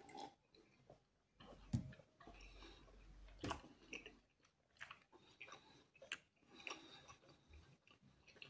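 Faint chewing and biting of a slice of meat pizza, with scattered small mouth clicks and a single louder knock about two seconds in.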